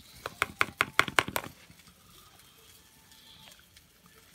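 A metal fork tapping and clinking quickly against the sauce tub and plate, about eight sharp taps in the first second and a half.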